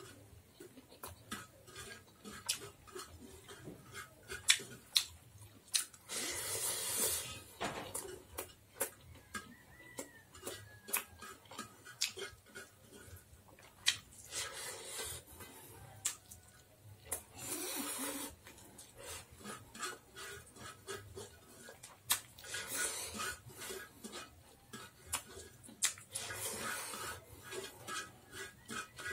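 Close-up eating by hand: wet chewing and lip-smacking clicks, with fingers scraping and tapping on a steel plate. About five breathy hisses, each around a second long, come through at intervals.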